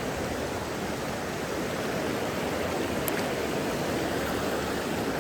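Mountain stream running slightly high, a steady rush of water.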